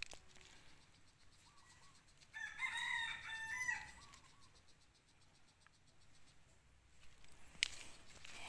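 A rooster crowing once, a call of about a second and a half starting about two and a half seconds in. Near the end, a sharp click followed by rustling.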